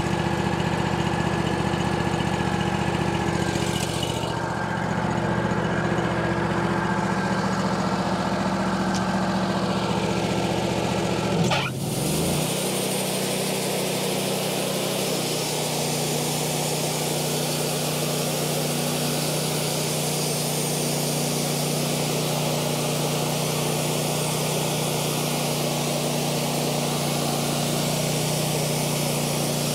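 Wood-Mizer LT40 Wide portable bandsaw mill running. Its engine runs steadily, then about twelve seconds in its pitch dips sharply and settles at a new steady speed as it is throttled up. From then on the spinning band blade adds a steady hiss, and it saws through a utility pole toward the end.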